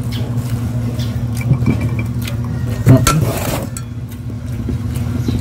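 A steady low motor hum runs throughout, under a few light clinks of a serving spoon against a rice-cooker pot and dishes, with one louder knock about three seconds in.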